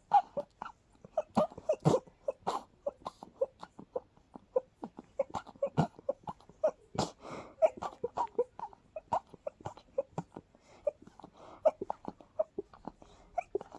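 A person sneezing in a rapid, almost looping string of short, sharp sneezes, about three a second, with a longer, noisier burst about halfway through.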